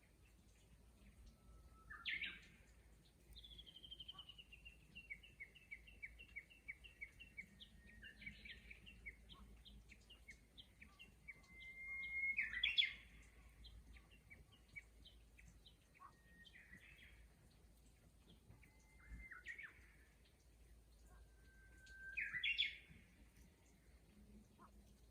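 A chorus of Japanese bush warblers singing. The loudest birds give the long whistled note that breaks into a quick flourish, about every ten seconds. Fainter songs answer from farther off, and early on one long run of quick repeated notes falls slowly in pitch.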